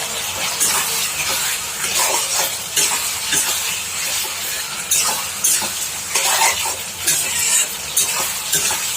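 Onions and sauces sizzling in a hot pan while being stirred, with a spatula scraping and clacking against the pan at irregular intervals. This is the onion-and-sauce masala being fried down.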